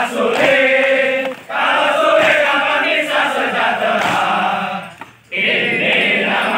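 A large group of voices chanting and shouting a yell in unison, with short breaks about a second and a half in and about five seconds in.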